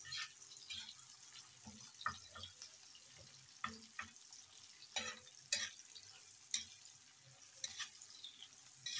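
Sliced onion, green chillies and garlic frying in oil on an iron tawa: a faint steady sizzle, with irregular scrapes and taps of a metal spatula stirring them.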